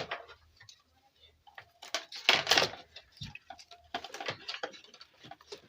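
Handling noise from a keyboard repair: a sharp click, then scattered light knocks and scrapes of plastic and metal parts being moved and fitted by hand.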